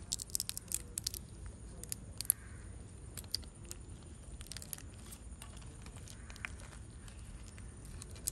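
Langoustine tail shell crackling and clicking as it is peeled apart by hand: a quick run of sharp clicks in the first second or so, then scattered snaps.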